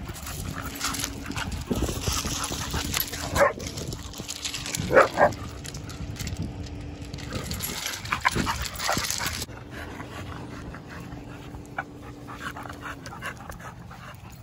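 Dogs playing together, with two short, loud barks close together about five seconds in.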